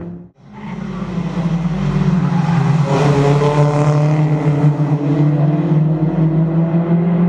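Toyota Corolla Altis race cars' engines running hard through a corner, with a pack of several cars passing about three seconds in. A brief dropout at the very start.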